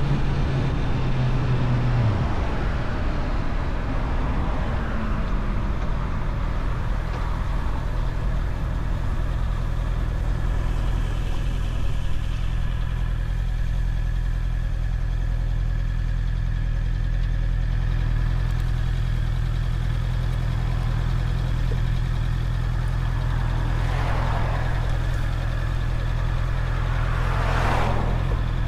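Honda CBR650R's inline-four engine running on the move, with wind rushing. The engine note drops about two seconds in and then holds steady. Two brief whooshes come near the end.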